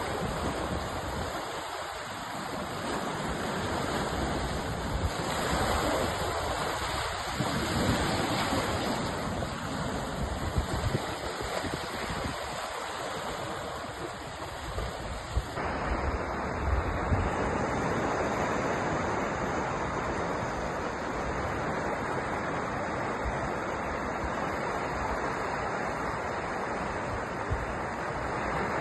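Sea waves washing onto a shore: a continuous rushing that swells and eases with each wave. A little over halfway through the character of the surf changes abruptly.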